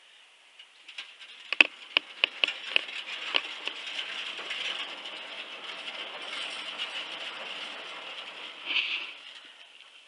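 Handling noise from a camera being carried on foot: a quick run of sharp clicks, then a steady rustle that swells once near the end.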